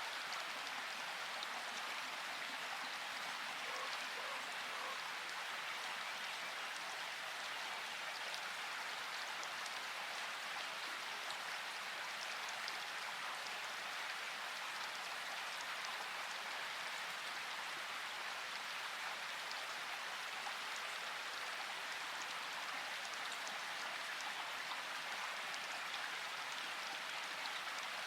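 Water ambience: a steady, even hiss without breaks.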